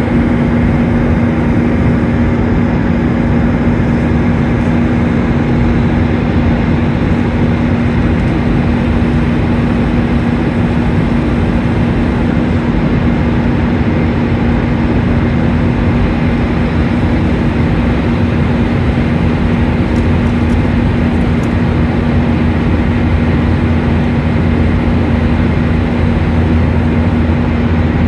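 Steady in-flight cabin noise of a Boeing 737-800 heard from a window seat over the wing: a constant rush of air and the hum of its CFM56-7B turbofan engines. A steady low hum runs throughout, and a deeper drone grows a little stronger in the second half.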